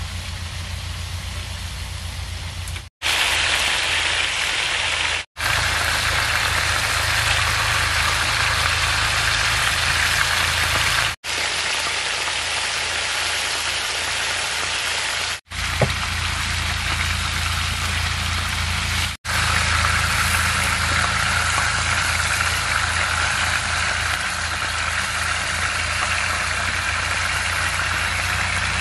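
Beef tikka patties frying in oil on a large iron griddle, sizzling steadily over a steady low hum. The sound breaks off for an instant five times, and there is a single sharp click about sixteen seconds in.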